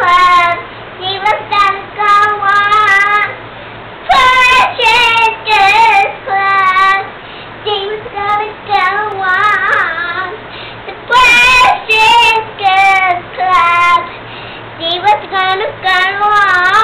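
A young girl singing loudly without accompaniment, in phrases of a second or two broken by short pauses.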